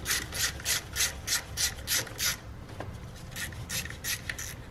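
A ratchet wrench loosening the 10 mm bolt that holds a camshaft position sensor. The pawl rasps on each back-swing, about three strokes a second, then the strokes turn fainter and sparser after about two and a half seconds.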